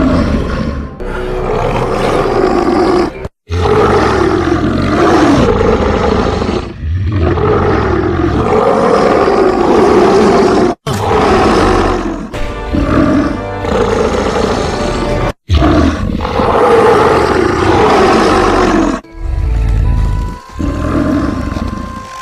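Loud creature roar sound effects, several in a row, each ending in an abrupt cut, mixed with music.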